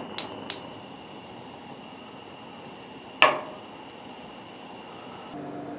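Gas stove burner lit by its spark igniter: three quick clicks, then the steady hiss of the burning gas. One sharp clack sounds about three seconds in.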